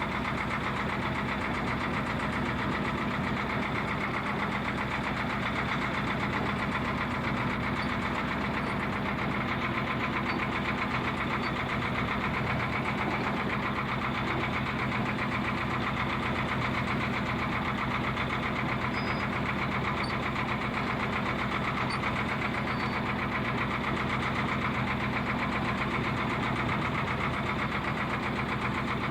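A fishing boat's engine running steadily at an even speed, with a fine rapid pulsing beat.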